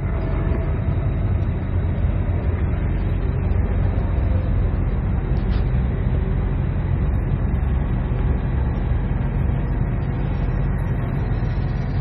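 Engine idling nearby: a steady, even low rumble.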